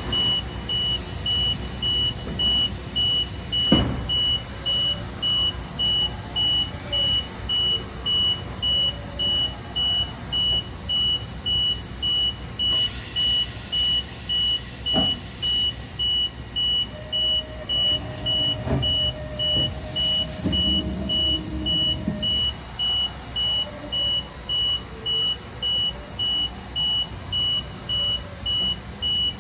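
Haas VF-3 APC machining center changing pallets: a warning beeper sounds in steady, even pulses, about three every two seconds, over the machine's mechanical noise. There are single clunks about 4, 15 and 19 seconds in, a hiss from about 13 to 16 seconds, and a steady motor hum from about 17 to 22 seconds.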